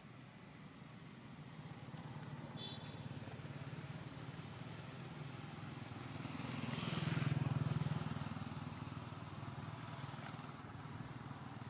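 A motor vehicle passing by, its low engine-and-tyre noise growing louder to a peak about seven seconds in and then fading. A few brief high chirps, likely birds, come a few seconds in.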